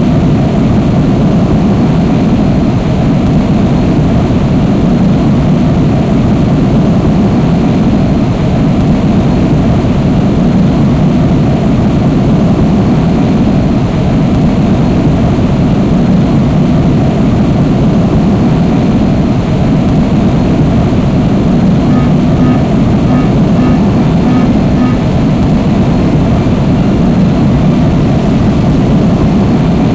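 Steady, loud, unbroken roar of a jet airliner's engines and airflow. About two-thirds of the way through, a short run of faint, evenly spaced high beeps sounds over it.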